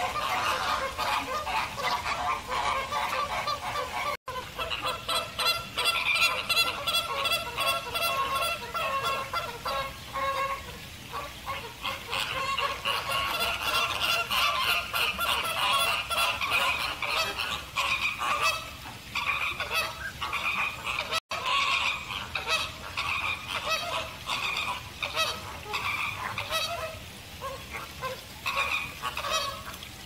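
A flock of American flamingos honking, many calls overlapping in a continuous noisy chorus, broken twice by a momentary gap.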